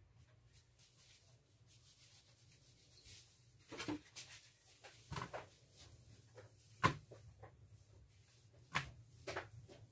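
Scattered light knocks and clicks of kitchen utensils and dishes being handled while flour and salt are readied for coating fish fillets, over a faint steady low hum.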